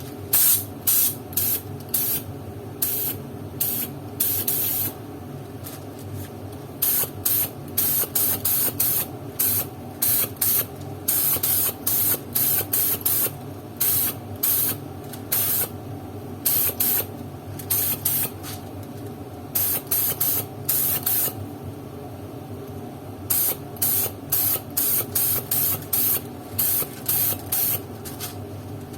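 Spray gun with a 1.4 mm nozzle spraying solvent-based matte leather top coat in many short hisses as the trigger is pulled and released, with two brief pauses. A steady low hum runs underneath.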